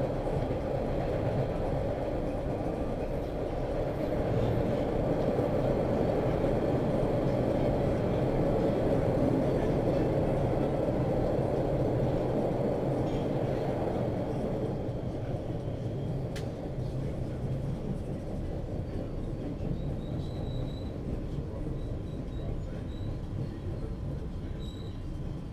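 Metro train ride heard from inside the car: a steady rumble of wheels on rails and car body. About halfway through it gets somewhat quieter and duller.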